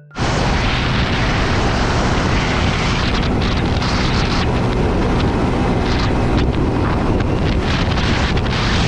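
Heavy wind buffeting on the microphone of a motorcycle riding at speed, a steady loud roar that covers the engine.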